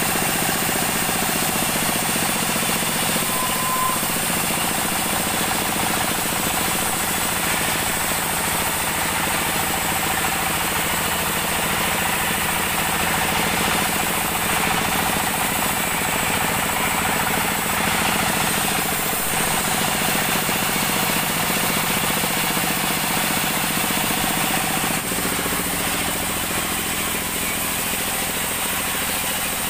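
Band sawmill running and cutting lengthwise through an acacia log: a loud, steady saw noise with no pauses. About 25 seconds in the deep part of the sound drops away and the rest carries on.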